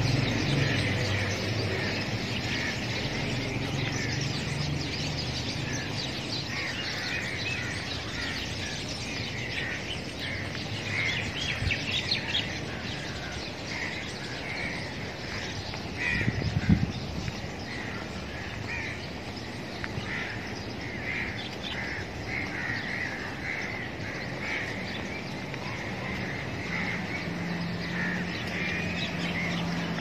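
Many birds chirping in the park trees, with short, quick chirps overlapping all the way through. A low hum sits underneath near the start and again near the end, and there is a single brief thump a little past halfway.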